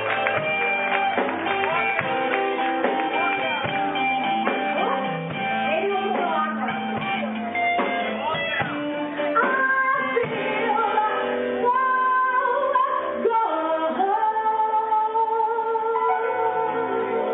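Live band music: electric guitar, keyboard and drum kit playing. A woman sings long held notes with vibrato over it from about halfway through.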